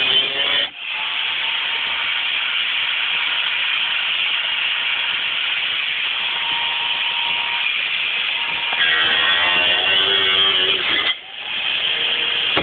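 Angle grinder with a cut-off disc cutting through a car's rear sheet-metal panel, a steady harsh grinding hiss. The motor's whine wavers in pitch near the start and again from about nine to eleven seconds as the disc bites, and the sound drops out briefly twice, just under a second in and about eleven seconds in.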